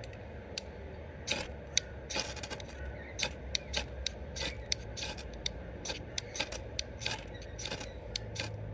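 Ferro rod being struck repeatedly with a striker to throw sparks onto tinder shreds: a run of short, sharp scrapes, a few a second and irregular.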